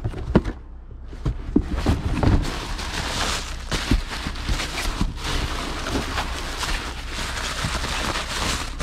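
Packing material rustling and crinkling as items are unwrapped and handled, with a few light knocks early on.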